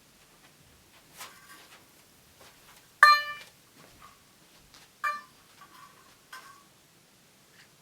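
A few sparse plucked string notes, each with a sharp attack that dies away within about half a second. The loudest comes about three seconds in, another about two seconds later, and softer ones around them.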